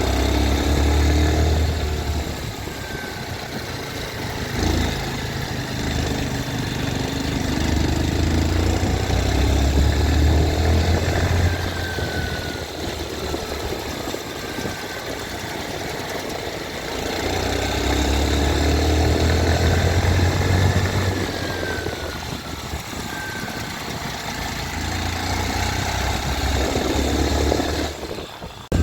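TVS Sport 110 motorcycle's small single-cylinder engine idling, revved up and let back down to idle about three times; the owner reports a strange noise from the engine.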